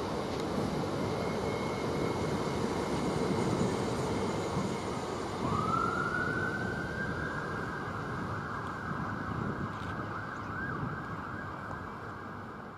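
Electric multiple-unit train running through the station: a steady rumble, and about halfway through a whine from its traction equipment rises quickly in pitch and then holds steady.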